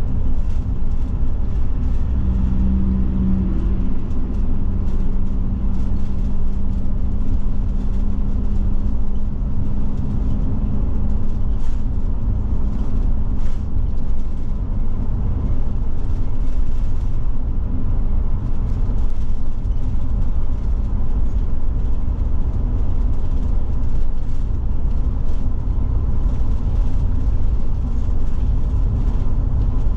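Forest River Forester motorhome driving, heard from inside the cab: steady engine and road noise, with a low engine drone standing out for the first half or so.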